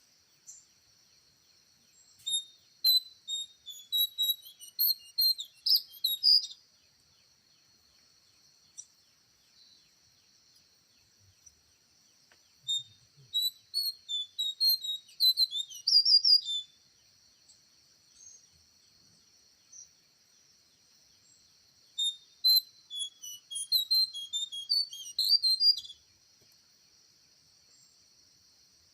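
A bird singing three bouts of rapid high chirps and whistled notes, each lasting about four seconds with pauses between, over a steady high-pitched insect drone.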